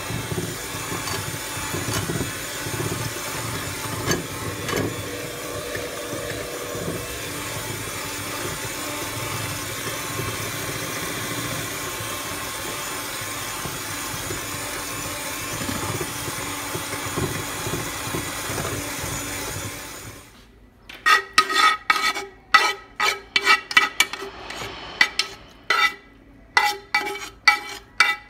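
Electric hand mixer running steadily in a bowl of batter. About twenty seconds in it stops, and a utensil scrapes and knocks sharply, many times, against a nonstick frying pan as cubed pancetta is scraped out into the bowl.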